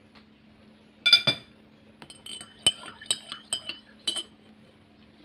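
Metal cutlery clinking against ceramic tableware: one loud ringing clink about a second in, then a run of lighter, quicker clinks as a spoon is worked in a ceramic coffee mug.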